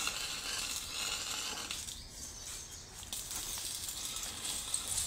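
Electric arc welding on the steel razor-wire frame: an irregular crackling hiss that dips briefly around the middle.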